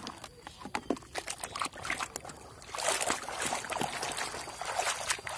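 Plastic toys clicking and clattering against each other as a hand rummages through a basket of muddy toys, then, from about three seconds in, a continuous sloshing and splashing of water as a toy is scrubbed in a bucket of foamy water.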